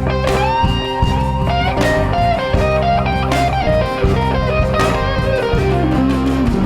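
Instrumental blues-rock music: an electric guitar solo with bent, sustained notes over bass and drums, the lead line stepping downward near the end.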